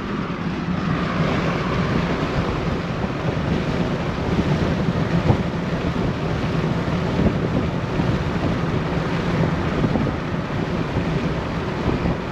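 Wind buffeting the camera's microphone: a steady, loud rushing noise.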